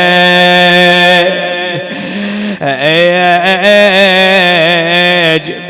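A man chanting an Arabic mourning elegy in long, wavering held notes without words. His voice drops away about a second in and comes back near the middle with a rising note that he then holds.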